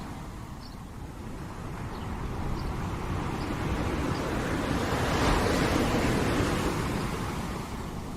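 Ocean waves breaking on a shore: the surf swells to a crest about five seconds in and then eases back.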